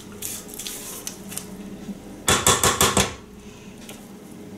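A spatula scraping creamed butter mixture off a stand mixer's beater and the sides of its stainless steel bowl, with light scrapes and small clicks. A little over two seconds in comes a quick run of about six sharp knocks of the spatula against the beater and bowl.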